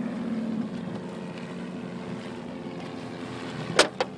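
Boat engine idling with a steady hum over a hiss of wind and water. Near the end, two short sharp puffs about a quarter second apart.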